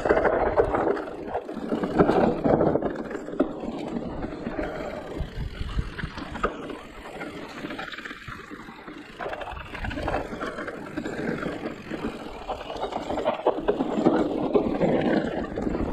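Riding noise of an electric mountain bike on a dirt forest trail: tyres rolling over soil, leaves and roots, with scattered knocks and rattles from the bike. It eases off a little midway and builds again near the end.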